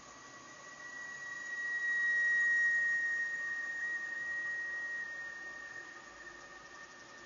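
Volvo V70 TDI air-conditioning evaporator howling with the engine off: one high steady tone that swells over about two seconds, then slowly fades and sags slightly in pitch, with a fainter lower hum underneath. The system had just been re-gassed with 790 g of refrigerant, and the owner suspects an overcharge.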